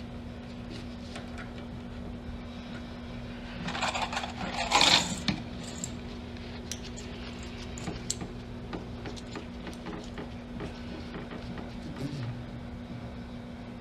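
A steady low hum with scattered light clicks, and a short burst of rustling noise about four to five seconds in, the loudest sound.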